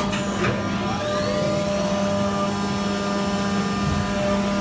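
Haas VF-2SS CNC vertical machining center running with flood coolant on: a steady machine whine made of several tones over a hiss of coolant spray. Some of the higher tones rise in pitch about a second in and then hold steady.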